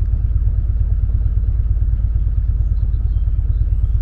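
A small boat's motor running steadily underway, a loud, even low rumble with a fast pulsing beat.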